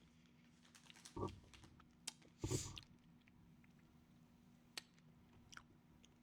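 Faint mouth sounds of a hard cough drop being sucked: a few soft clicks and smacks, scattered over near silence.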